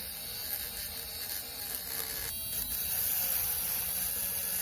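Handheld high-speed rotary tool's small electric motor running steadily at speed without load, a whine with a high hiss, broken by a short rattle about halfway through.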